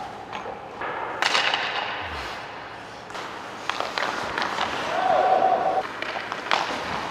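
Ice hockey shooting practice: skates scraping and carving the ice, with sharp cracks of a stick on the puck and the puck striking the goalie's pads. A brief squeal comes about five seconds in.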